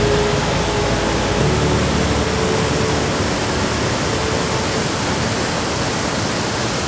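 Waterfall on the Amnicon River: steady, loud rush of falling water.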